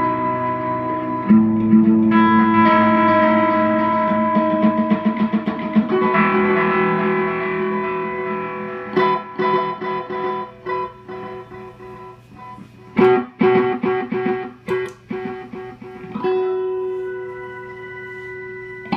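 Electric guitar played through a Vox Delaylab delay pedal: held chords and picked notes with delay repeats trailing behind them. A run of quick picked notes comes in the middle, and a fresh chord rings out near the end.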